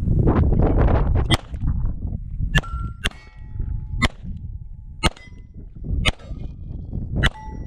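Seven 9mm pistol shots from a Beretta 92, about one a second, several followed by the ring of a struck steel target plate.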